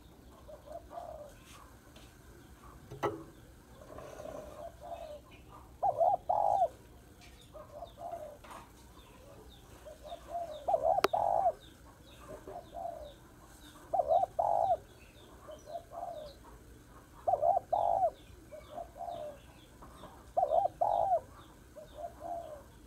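Spotted dove cooing: repeated phrases of a few low coos each, about every three to four seconds, louder from about six seconds in. Faint high chirps of small birds and a couple of sharp clicks sound behind it.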